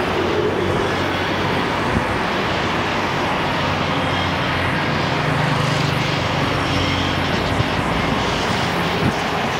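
Steady roar of heavy highway traffic heard from a moving bicycle, with a deeper engine drone from a nearby vehicle swelling about five seconds in and fading near eight seconds.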